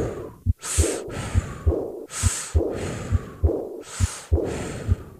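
Heart auscultation recording: regular lub-dub heart sounds under loud breath sounds, about three breaths rising and falling every second and a half. The soft diastolic murmur of aortic regurgitation has a pitch like the breath sounds and is lost among them.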